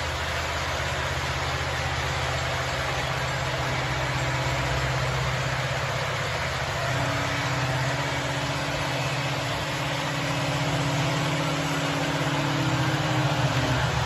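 O gauge model diesel locomotives running on a shelf layout: a steady diesel engine rumble from the locomotives' onboard sound, over the rolling noise of the train on the track, getting louder near the end.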